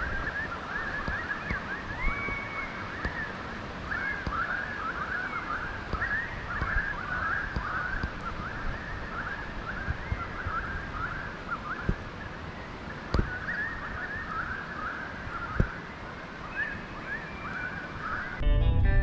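Many birds chirping and calling at once, a steady chatter of short rising and falling calls. Guitar music comes in loudly just before the end.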